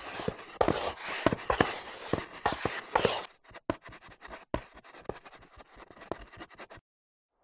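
Chalk scratching and tapping on a blackboard, as a sound effect: quick dense strokes for about three seconds, then sparser taps, stopping shortly before the end.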